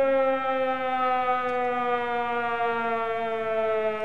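An alarm siren sounded to celebrate a big card pull: one long, rich tone that falls slowly in pitch as it winds down.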